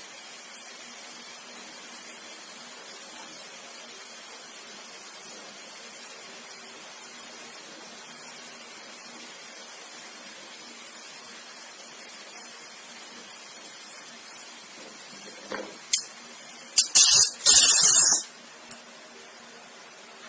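Brazing torch flame hissing steadily while copper pipe joints on an air-conditioner four-way valve are brazed, with a few much louder bursts of hiss near the end.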